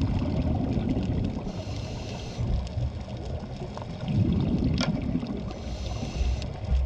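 Underwater scuba breathing through a regulator: a low bubbling rumble of exhaled air alternating with a hiss of inhaling, twice over. A sharp click sounds near the middle.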